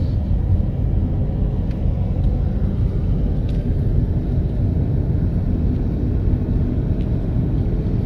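A car being driven at a steady speed: a steady low rumble of engine and road noise, picked up from the moving car.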